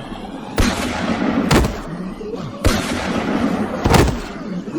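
Gunshot sound effects: four sharp shots about a second apart, each trailing off in a short noisy tail.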